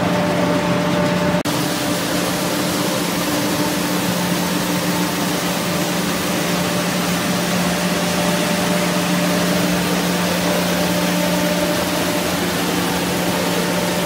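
Peanut shelling and grading machinery running: a steady motor hum under a dense, even hiss. A brief break about a second and a half in, after which the hiss is brighter.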